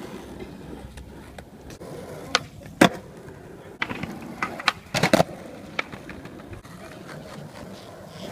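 Skateboard rolling, with a few sharp clacks of the board striking the ground, loudest about three seconds in and again as a quick cluster around the middle.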